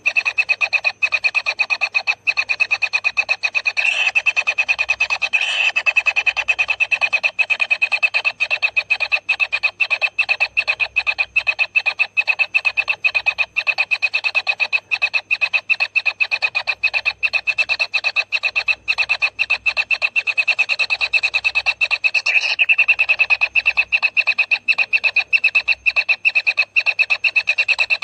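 Kingfisher nestlings calling in a steady, rapidly pulsing buzz, several pulses a second, with a few slightly louder calls about four and five seconds in and again near twenty-two seconds.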